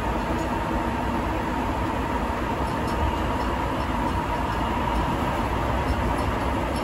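Steady running noise inside a rubber-tyred Sapporo Subway Tozai Line car travelling between stations: an even rumble and rush with a steady whine running through it.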